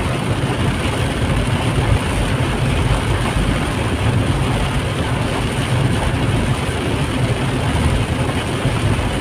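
Steady noise of heavy rain on a moving car and its tyres on the flooded road, heard from inside the cabin, with the engine's low rumble underneath.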